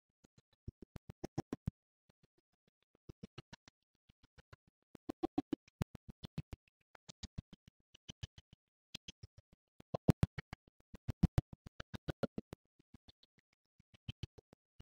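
Quiet bursts of rapid clicks and rattles, several a second, from a P729 BB pistol being handled and worked by hand.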